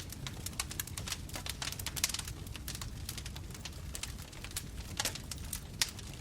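Bonfire burning with dense, irregular crackling and popping over a low steady rumble of flames, with a few louder pops.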